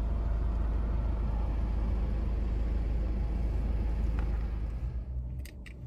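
Steady low rumble of a car heard from inside the cabin. It cuts off about five seconds in, followed by a few sharp clicks.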